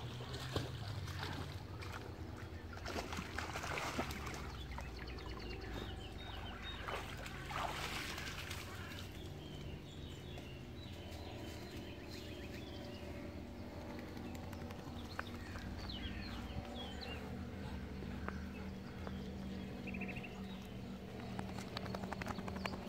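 Small birds chirping in short repeated calls, thickest through the middle and again near the end, over a low steady outdoor rumble.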